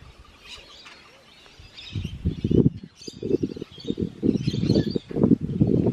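Birds chirping throughout. From about two seconds in, an irregular low rumbling and knocking starts and becomes the loudest sound.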